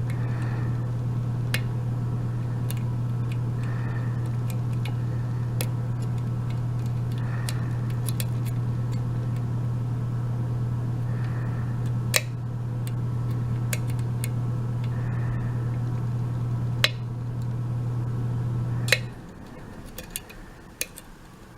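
A steady low hum that stops abruptly about nineteen seconds in, with scattered small metallic clicks and ticks of lock picks and a tension wrench working the pins of a Sargent mortise cylinder, three of them sharper than the rest.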